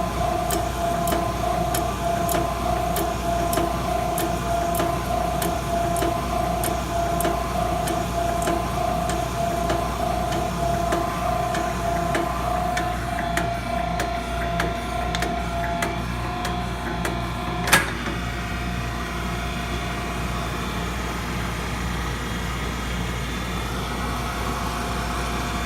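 WWII-vintage Brown & Sharpe No. 5 hydraulic surface grinder running through a light finish cut on a high-speed steel lathe tool, cross feed engaged. Over a steady hum, a pulsing tone and light ticks come about twice a second and die away past the halfway point. A single sharp click comes about three-quarters of the way through, and the hum runs on.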